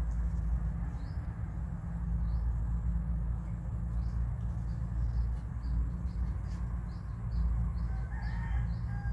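Faint high chirping calls repeating about once a second over a steady low rumble, with a short, louder pitched call about eight seconds in.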